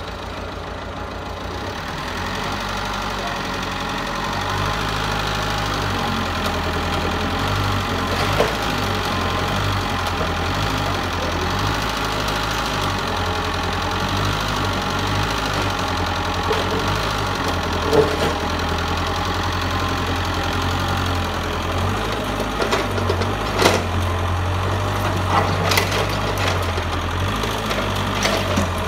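Mitsubishi excavator's diesel engine running steadily, growing louder over the first few seconds, with a few sharp metallic knocks scattered through, the loudest about two thirds of the way in.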